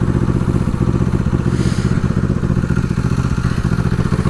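1973 Honda CB450's parallel-twin engine idling steadily through non-original exhaust pipes, an even, unchanging beat.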